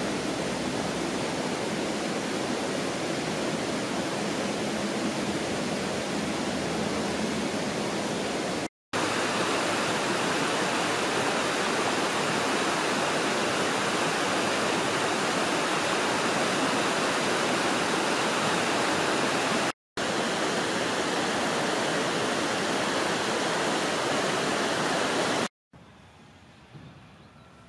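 Fast river water rushing over rapids, a loud, steady rush of water that cuts off abruptly three times; after the last cut only a faint background with a couple of light ticks remains.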